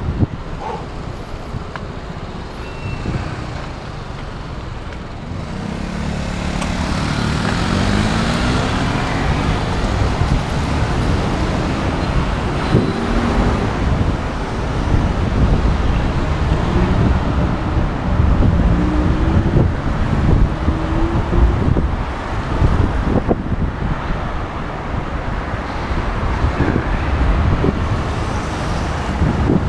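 City road traffic going by, with a steady noisy rush and heavy low rumble. Now and then a passing vehicle's engine rises in pitch as it speeds up.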